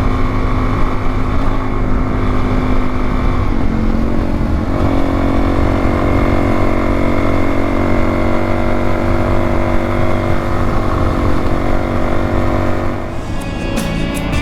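Dual-sport motorcycle engine running steadily while riding on pavement, its note changing around four seconds in. Music starts near the end.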